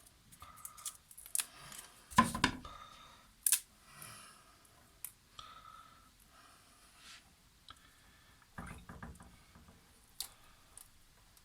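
Adhesive tape being handled: pieces taken off the roll and pressed into place, heard as scattered short rasps and light clicks. The loudest rasp comes about two seconds in, and a quick run of small clicks about nine seconds in.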